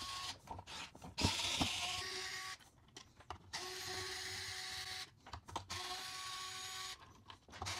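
Steady mechanical whir with hiss and a few held tones, in four stretches broken by short dips, with two sharp clicks about a second in from robot-arm parts being handled and fitted together.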